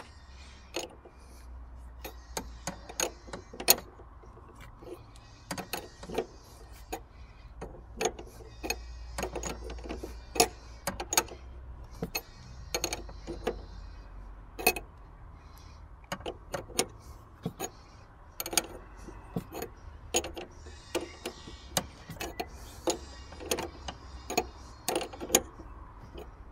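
Irregular sharp metallic clicks of a ring spanner working the nut on top of a car's front shock absorber piston rod as the nut is unscrewed, the clicks often coming in quick little clusters.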